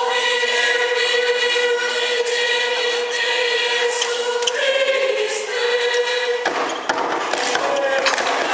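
Mixed church choir singing, holding sustained chords. About six and a half seconds in, the held chord breaks off into a sudden loud, noisy section full of sharp hits.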